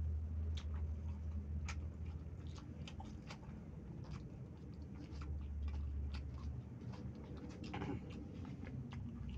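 Close-up chewing and wet mouth clicks of a person eating yellow rice by hand, coming irregularly many times over, with a low steady hum underneath.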